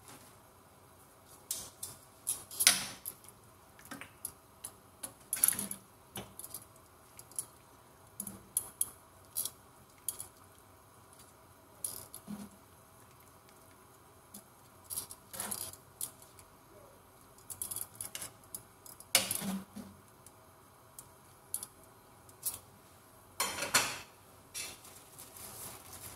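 Metal kitchen tongs clicking and knocking against a large pan as chicken pieces are turned in liquid: irregular sharp clinks, with a longer clatter near the end.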